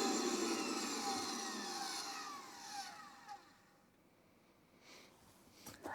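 Vacuum-forming machine's vacuum motor spinning down after being switched off, its whine falling in pitch and fading out over about three seconds, once the plastic dome has been pulled. A faint click comes near the end.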